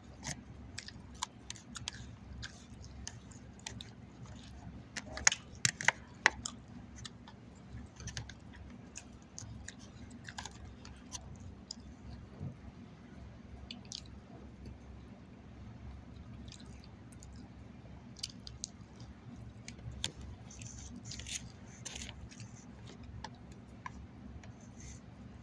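A person chewing grilled chicken salad close to the microphone, with soft wet squishes and crisp little crunches all the way through. Several louder sharp clicks come together about five to six seconds in.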